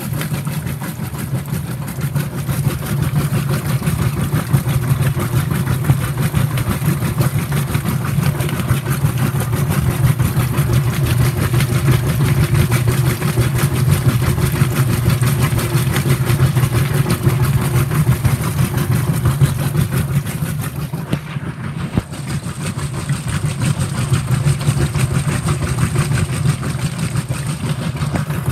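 Whirlpool WTW5300SQ0 washing machine agitating: its motor and drive run loudly and steadily with a low hum, dipping briefly about three quarters of the way through.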